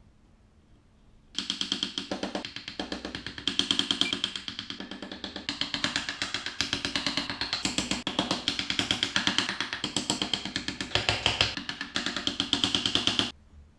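Background music with a drum kit, starting after about a second and a half of near silence and cutting off abruptly shortly before the end.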